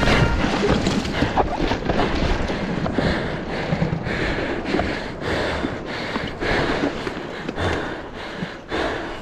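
Small skiff on the water: wind rushing over the microphone, with irregular knocks and slaps of water against the hull.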